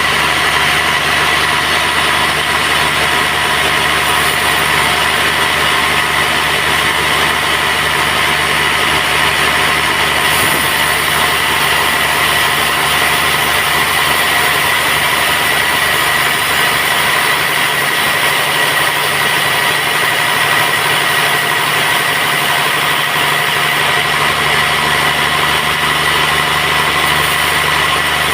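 Band sawmill running steadily: a constant high whine over a low machine hum.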